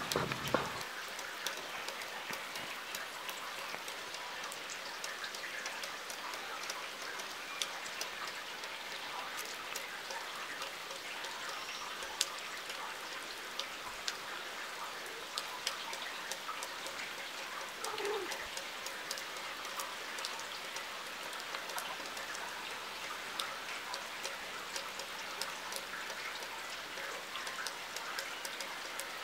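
Steady rain during a thunderstorm, with many sharp individual drop ticks throughout. A low rumble dies away in the first second.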